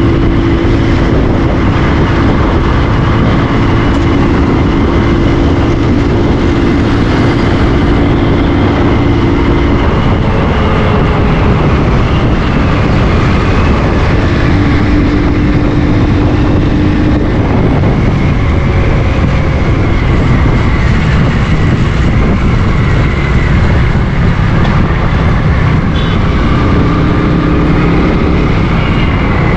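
Motorcycle riding at road speed: wind rushing over the camera microphone in a loud, steady roar, with the bike's engine droning underneath at times.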